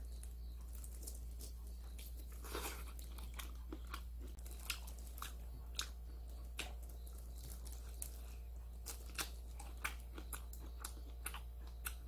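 A person chewing and biting into steamed large prawns, with irregular sharp clicks and small crunches of mouth and shell. A steady low hum runs underneath.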